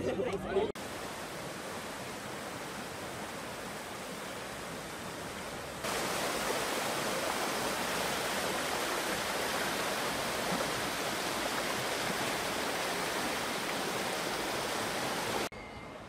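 Hirose River water rushing over shallow rapids: a steady hiss of whitewater. It gets louder about six seconds in and stops abruptly near the end.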